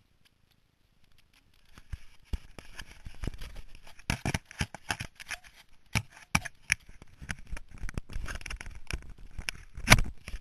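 Handling noise on a GoPro Helmet Hero Wide camera: fingers rubbing and scraping on its housing and mount, with many sharp clicks and knocks. It starts about a second and a half in, and the loudest knock comes near the end.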